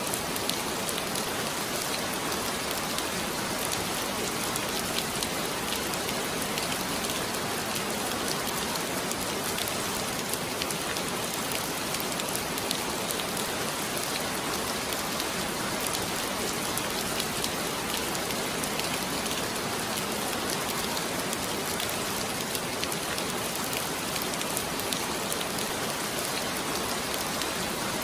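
Heavy rain falling steadily: an even, unbroken hiss with many individual drop strikes ticking through it.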